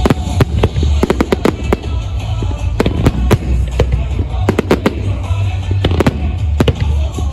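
Aerial fireworks shells bursting in quick succession: a dense run of sharp bangs and crackles over a continuous low rumble.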